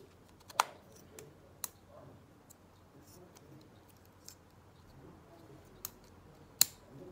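Sharp plastic clicks and snaps as a battery is fitted into a GoPro Hero 7 Black and its battery door is worked: a loud click under a second in, another near the end, and a few fainter ones between.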